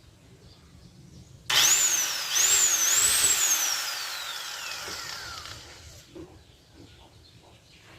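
Handheld power tool motor run up on the trigger in three quick pulses, its high whine rising each time, then released and spinning down with a steadily falling whine over about two seconds, on a free-running test.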